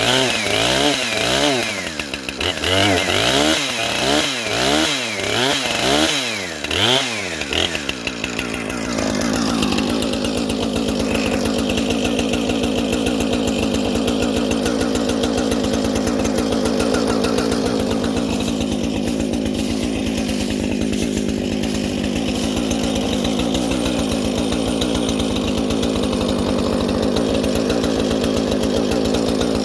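Two-stroke gas chainsaw cutting dead wood. For about eight seconds the engine speed rises and falls about once a second, then it holds at a steady high speed through a long cut.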